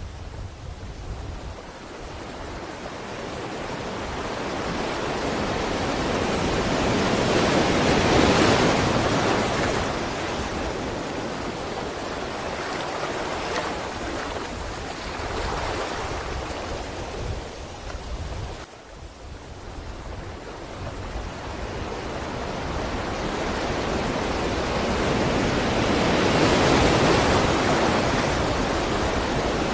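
Sea waves surging and washing ashore: a hissing rush swells to a peak about eight seconds in, eases off, drops away briefly around nineteen seconds, then builds to another peak near the end.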